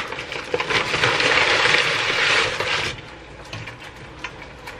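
Live crawfish poured from a paper bag into a pot of boiling water: a loud, clattering rush of shells and bag for about three seconds, then only scattered faint clicks.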